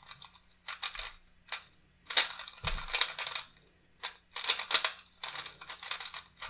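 A GAN 356 i Carry smart Rubik's cube being turned fast during a speedsolve: bursts of rapid plastic clacking from the turning layers, with short pauses between them.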